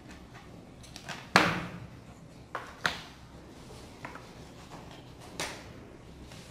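Tabletop handling sounds: a sharp knock about a second and a half in, then a few lighter clicks and taps, as a hot glue gun is put down and stiff paper cut-outs are pressed into place.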